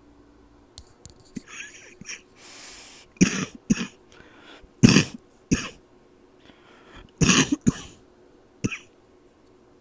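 A person having a coughing fit: a drawn-in breath, then about seven short coughs, mostly in pairs, with a last single cough near the end.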